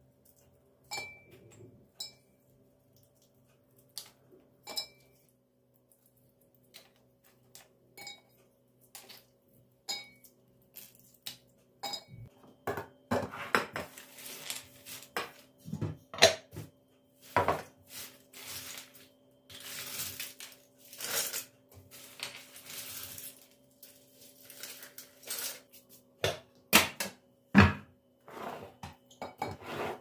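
Walnut shells and kernels handled on a stone countertop. For the first twelve seconds or so there are scattered sharp clicks and taps, with a few short glassy pings as kernels drop into a glass jar. After that comes denser rattling and scraping of dry walnut shells as they are swept together.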